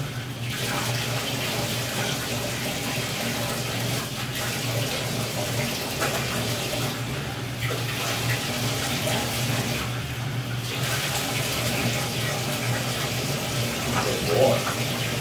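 Bathtub faucet running steadily, its stream splashing into the tub around a dog being washed, with a few brief dips in the rush of water.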